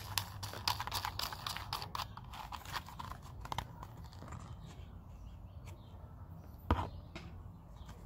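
Plastic handling noise as the threaded plastic locking ring is screwed onto the back of a 12 V USB socket through a plastic trim panel: quick small clicks and scrapes over the first half, thinning out, then one sharp knock near the end.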